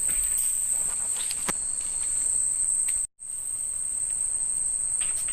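Steady, high-pitched chorus of night insects such as crickets in a tropical forest after dark, cut off for a split second about three seconds in.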